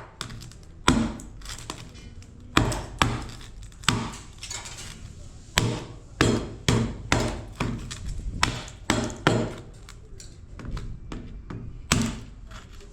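A hatchet striking an LED lamp's housing, chopping it open to get at the metal inside: about a dozen sharp blows at uneven intervals, some in quick pairs and triplets.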